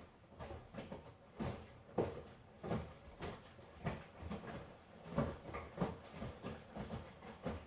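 Miele washing machine drum turning in the wash, with laundry tumbling and dropping in repeated, uneven thuds, a little under two a second, over a low running hum.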